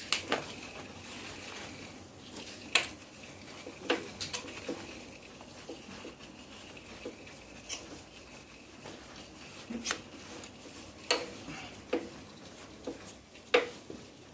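Sharp clicks and light taps at irregular intervals, about a dozen, from hand tools and parts being handled while the Dnepr MT 10-36 engine is unbolted and taken apart.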